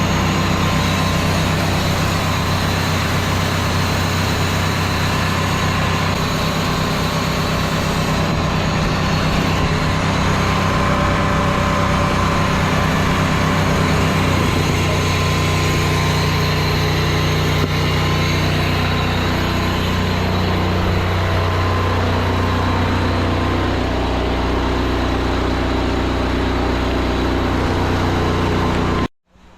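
Pressure washer engine and pump running steadily while downstreaming chemical through the injector; the engine note shifts slightly about halfway through. The sound cuts off abruptly just before the end.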